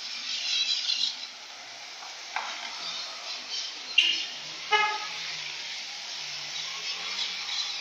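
Steady rain hiss over a wet street. Quick high chirps come in the first second, then two sharp clicks. A short, high-pitched toot a little before the five-second mark is the loudest sound.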